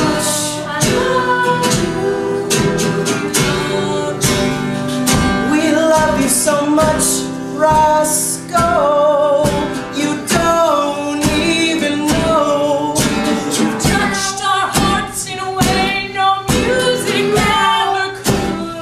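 Male and female voices singing an improvised song together, with instrumental accompaniment and frequent sharp strokes through it.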